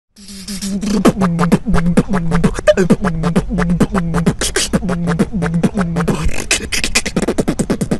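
Beatboxing: a rapid stream of mouth-made drum sounds with a low sung bass line that dips in pitch and repeats in short phrases. Near the end the percussive clicks come faster and denser.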